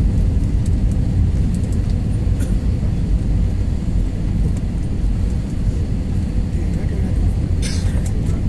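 Steady cabin noise of a jet airliner on approach: engine and airflow rumble heard from inside the cabin, with a short hiss near the end.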